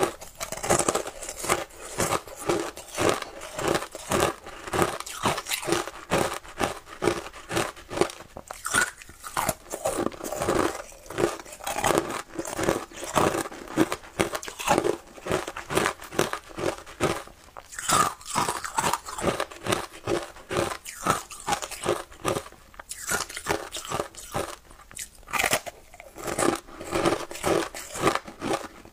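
Shaved ice coated in matcha milk powder being bitten and chewed close to the microphone: dense, crisp crunching, a few crunches a second without pause.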